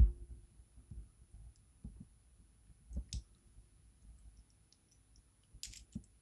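Sharp knocks and small clicks from a Goal D9 lock being worked by hand while trying to push its core out. The loudest knock comes right at the start, a bright click about three seconds in, and a short rattle near the end.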